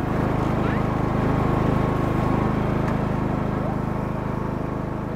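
Riding lawn mower's engine running steadily, gradually getting quieter toward the end.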